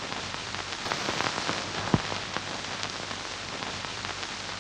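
Steady crackling hiss, dense with fine clicks, with one louder pop about two seconds in.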